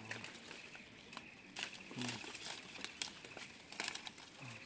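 Rustling and scattered crackles of durian leaves and twigs as hands pull and bend a young durian tree's branches to shape it.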